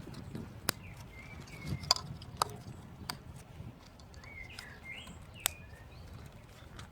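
Birds chirping in short gliding calls, in two clusters, over a low rumble, with a few scattered sharp clicks.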